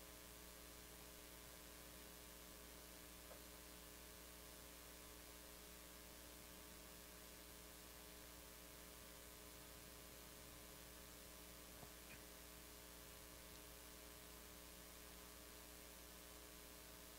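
Near silence: a faint steady electrical hum with hiss, with one or two tiny ticks.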